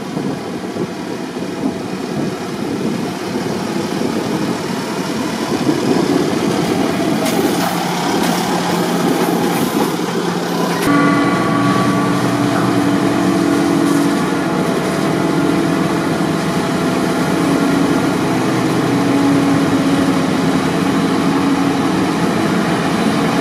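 Fendt 516 tractor pulling a forage wagon along a dirt field track, its engine running with tyre and wind noise. About eleven seconds in the sound cuts abruptly to a Claas Jaguar forage harvester chopping maize, a steady engine drone with a held whine, while a Case tractor and wagon run alongside.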